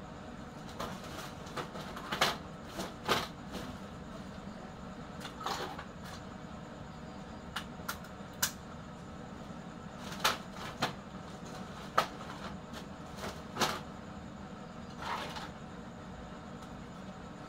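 Scrap computer motherboards clattering as they are pulled from a pile and dropped into a woven plastic sack: irregular knocks and rattles, a dozen or so, over a steady low hum.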